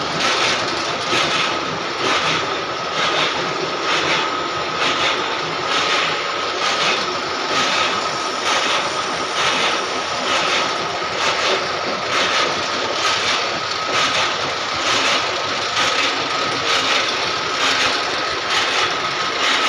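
Shop machinery working a rotating 14×36 roll: a steady whine with a regular pulse about one and a half times a second.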